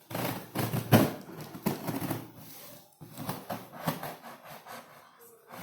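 Packaging being handled and torn open: irregular crackling, rustling and clicking, with a short pause about three seconds in.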